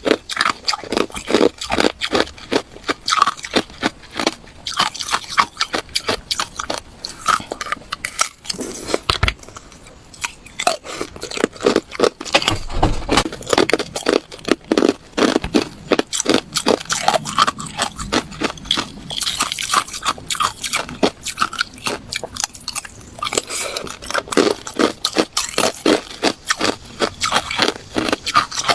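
A person chewing and biting ice: a dense run of loud, irregular crunches and cracks.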